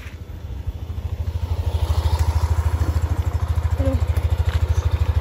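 Small motorcycle engine running with a fast, even low thumping beat, growing louder about a second in.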